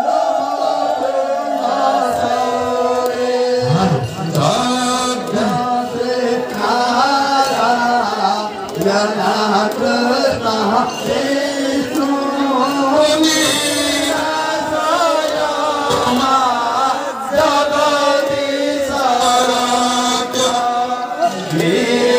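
Devotional chanting: voices singing a melodic chant over a steady held low note.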